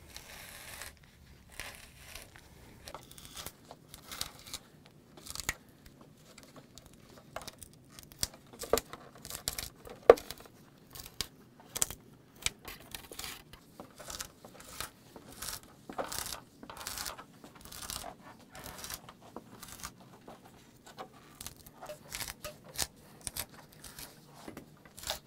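Old all-rubber refrigerator door gasket being pulled out from under the door's plastic liner by hand, a stretch at a time: a long run of short, irregular ripping and crackling sounds.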